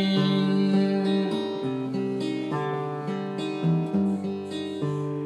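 Acoustic guitar strummed, moving through a chord change about every second.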